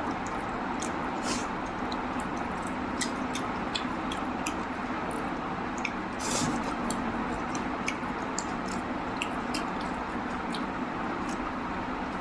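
A person chewing and eating a mouthful of rice and mutton curry: scattered wet smacks and clicks of the mouth over a steady background hiss.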